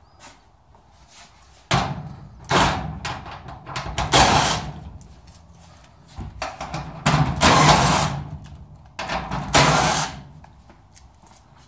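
A cordless power driver backs screws out of the hinges on a steel garage door section, in about five bursts of one to two seconds each.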